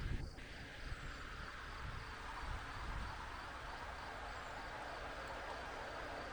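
Steady rushing of a mountain stream, with a faint, evenly repeating high ticking over it.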